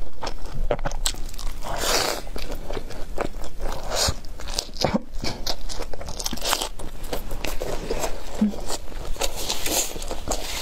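Crunchy biting and chewing of a crispy Chinese hand-grabbed pancake (shouzhuabing), a dense irregular run of crackles bite after bite.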